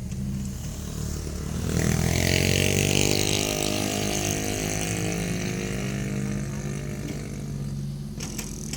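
A motor vehicle engine runs steadily while another vehicle passes close by, swelling loud about two seconds in and then fading away. A few sharp clicks come near the end.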